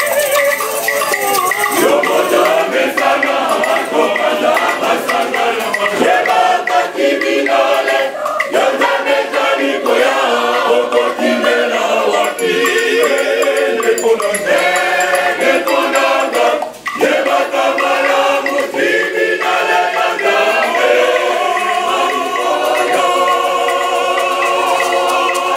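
Church choir singing a gospel song, many voices together into microphones.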